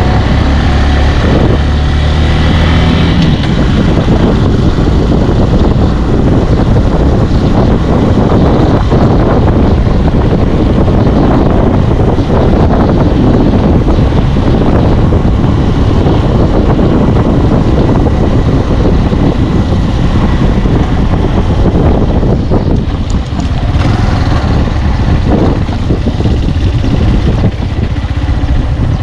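A motor vehicle travelling along at a steady pace: its engine running with a loud, steady rumble.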